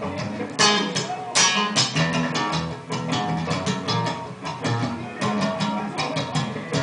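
Instrumental passage of a worship song played by a full band: guitar strummed and picked over drums, with a five-string Cort B5 bass guitar carrying the low line. Two loud drum hits come in the first second and a half.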